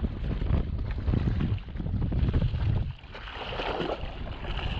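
Wind buffeting the microphone over water splashing and lapping against a jet ski's hull. About three seconds in, the wind rumble drops away and the hiss of splashing water comes forward.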